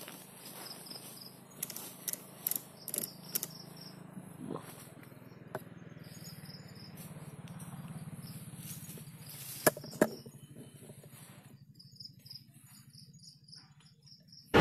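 Night crickets chirping in short pulsed trills, with a scatter of sharp clicks and snaps early on and two louder snaps about ten seconds in, over a low steady hum that fades out near the end.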